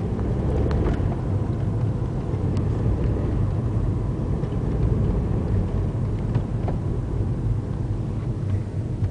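Car driving slowly along a paved road, heard from inside: a steady low rumble of engine and tyres.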